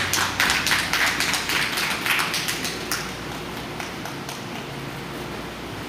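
A quick, irregular run of sharp taps for about three seconds, then a steady hiss of room noise.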